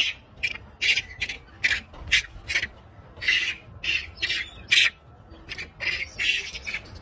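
A troop of macaques giving short, harsh calls one after another, about two a second.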